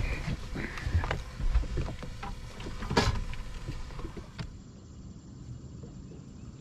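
Knocks, clicks and rattles of handling in a small fishing boat, with the loudest knock about three seconds in. After about four and a half seconds it drops to a quieter, steady background.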